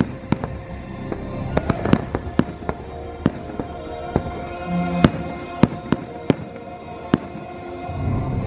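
Aerial fireworks bursting overhead, a rapid irregular string of sharp bangs about two a second, the loudest about five seconds in, over the show's music playing from loudspeakers.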